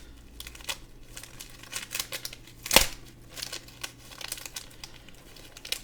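Plastic action-figure packaging crinkling and clicking as it is handled, with one sharp, louder snap or click a little under three seconds in, while a weapon accessory is being worked loose.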